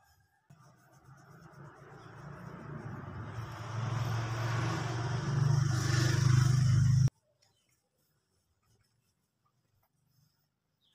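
A motor-like low hum with hiss, growing steadily louder for about six seconds, then cutting off abruptly.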